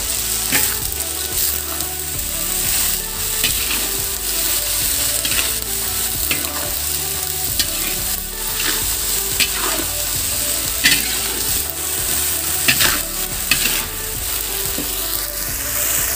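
Cut long beans, carrots and onion sizzling as they stir-fry in a steel wok, with a metal spatula scraping and clicking against the pan now and then.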